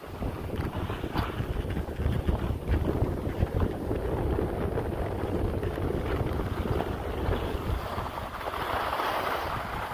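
Wind buffeting the microphone of a camera carried by a moving skier, a steady low rumble, over the hiss of skis sliding on packed snow that grows louder near the end.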